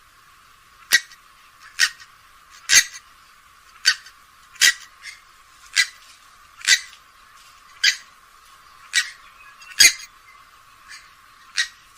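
Grey-headed swamphen giving a series of short, sharp calls, about one a second.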